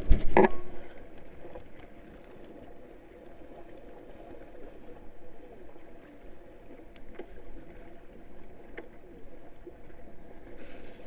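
Two or three knocks in the first half second, then a low, steady wash of sea water and wind around a floating fishing board, with faint scattered clicks.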